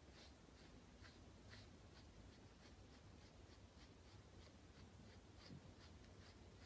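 Faint, rhythmic scratching of a small pet brush stroked through a chinchilla's fur, about two to three strokes a second.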